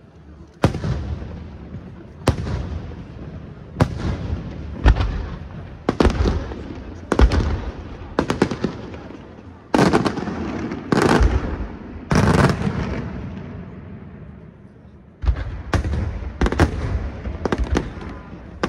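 Aerial firework shells bursting in a string of sharp bangs, more than a dozen, often a second or so apart, each trailing off in a rumble. There is a pause of about three seconds roughly two-thirds of the way through before the bangs pick up again.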